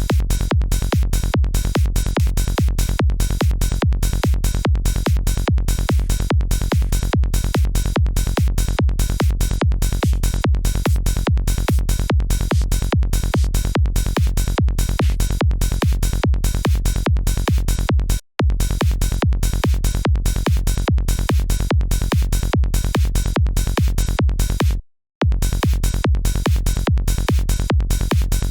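Psytrance kick drum and bass playing a fast, even pulse, heavy in the low end. It cuts out briefly twice, about 18 seconds in and about 25 seconds in.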